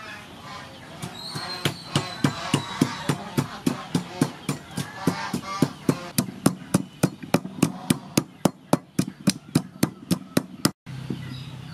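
Wooden pestle pounding fresh red chilies in a wooden mortar: a steady run of knocks, about three or four a second, stopping abruptly near the end.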